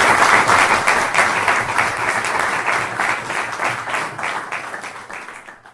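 Audience applauding, the clapping fading out toward the end.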